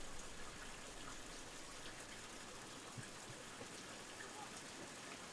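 Faint, steady hiss of outdoor background noise with a few soft ticks scattered through it.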